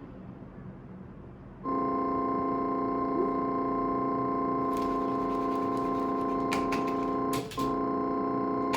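A steady held electronic keyboard tone, rich in overtones, starts about two seconds in and breaks off briefly near the end before resuming, with a run of sharp clicks joining it in the second half.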